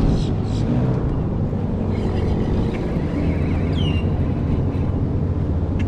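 Airboat engine and propeller running steadily as a constant low drone. About four seconds in, a bird gives one short whistle that sweeps down.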